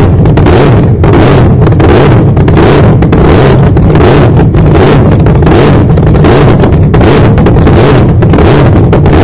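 Supercharged nitromethane V8 of an AA/FD slingshot dragster idling very loud, with a rough, pulsing beat, the car held at the start line before its pass.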